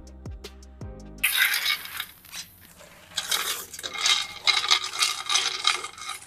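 Plucked-string music briefly. Then, about a second in, cacao beans rattle and scrape in a metal pot in uneven bursts as sugar is poured over them and a hand stirs them together.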